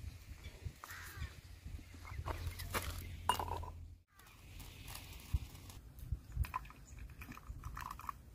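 A glass mug handled and set down on a rough stone, with light knocks and clinks, over a low rumble with faint bird calls. The sound drops out briefly about four seconds in.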